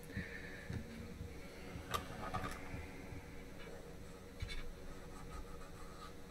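Cotton swab rubbing leftover thermal paste off the copper cold plate of an AIO cooler's pump block: a faint scratching, with a few light clicks from handling the block.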